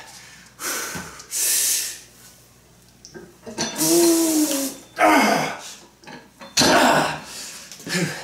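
A man breathing hard through reps of a heavy goblet squat, about 155 pounds held at the chest: a forceful, hissing breath every second or so, with a strained, voiced groan about four seconds in at the bottom of a rep.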